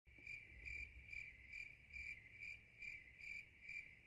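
Cricket chirping faintly at an even pace, about two chirps a second, the stock cue for an awkward silence.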